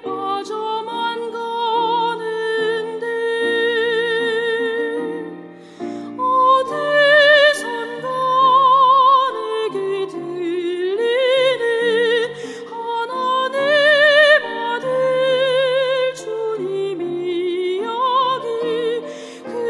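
A soprano singing a slow song with vibrato on long held notes, over instrumental accompaniment, with a brief pause for breath about six seconds in.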